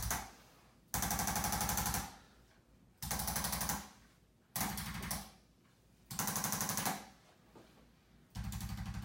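ArthroStim chiropractic adjusting instrument firing rapid mechanical taps along the mid back to relax the muscles, in about five bursts of roughly a second each with short pauses between.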